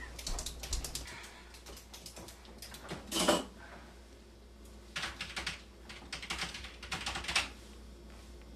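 A scattered series of small clicks and taps, in short clusters, with a louder knock about three seconds in.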